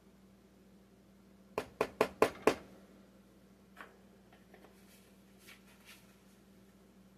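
Five quick, sharp knocks in about a second, the last two loudest, then a few faint clicks.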